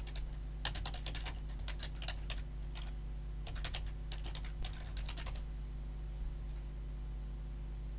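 Typing on a computer keyboard: a quick run of keystrokes for about five seconds, then it stops, with a stray keystroke or two afterwards.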